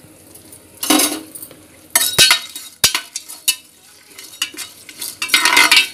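Steel spoon stirring whole spices frying in oil in a pressure cooker. The spoon scrapes and clinks against the pot about a second in, again around two to three seconds, and near the end, over a light sizzle.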